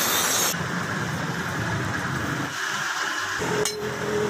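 Steel cleaver blade ground on a spinning grinding wheel, the grinding hiss stopping about half a second in; the grinder's motor keeps running steadily, and a single sharp metal knock comes near the end.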